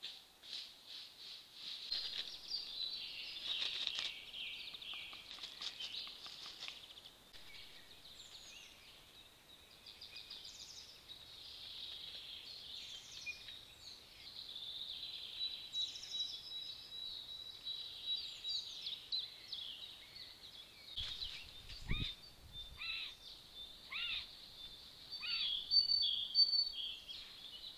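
Several wild songbirds singing and calling in woodland, many short high chirps and sweeping phrases overlapping, picked up by a trail camera's microphone. Near the end one bird repeats a short down-slurred note several times, and a couple of low thumps come a little before it.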